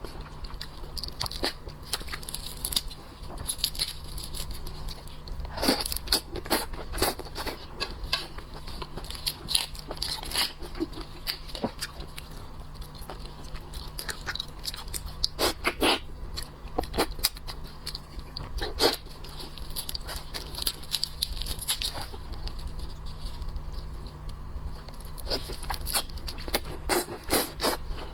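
Irregular crunching, crackling and clicking of seafood shell being cracked and eaten at close range, over a steady low hum.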